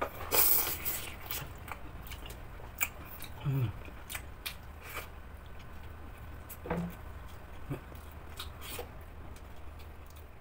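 Eating fried chicken by hand close to the microphone: a loud bite into a fried chicken leg about half a second in, then chewing and lip-smacking clicks, with two brief hums.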